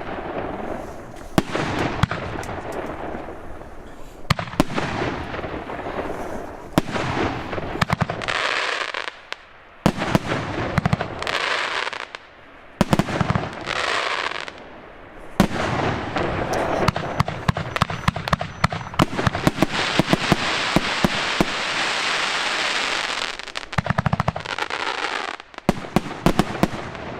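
A large 50 mm-calibre firework battery (Blackboxx Jumbo Mega Blaster) firing: a fast series of sharp launch shots and bangs, broken by stretches of dense hissing crackle, the longest in the second half.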